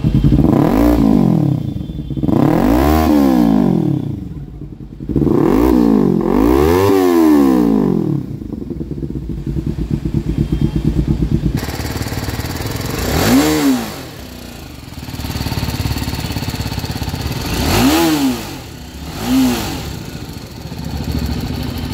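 Kawasaki Ninja 300 parallel-twin engine through an SC Project slip-on exhaust, revved hard four times at a standstill, each rev rising and falling back to idle. Then a BMW G 310 R single-cylinder through its stock exhaust idles and is blipped three times, shorter and quieter.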